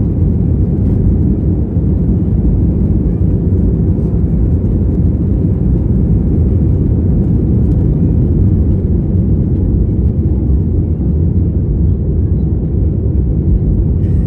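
Aeroplane engines during take-off: a loud, steady low rumble that does not change.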